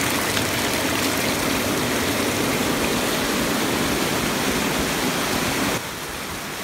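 Water from a small mountain waterfall rushing and splashing over boulders in a rocky gully, a steady rush that drops to a quieter level near the end.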